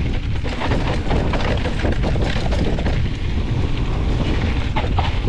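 Mountain bike riding down a dirt trail: heavy wind buffeting on the microphone, tyres rolling over dirt and rock, and frequent rattles and knocks from the bike over bumps.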